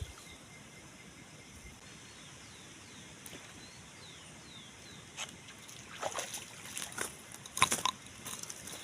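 Quiet waterside ambience with a few faint downward-sweeping bird chirps. From about five seconds in comes a run of short, irregular water sloshes and knocks.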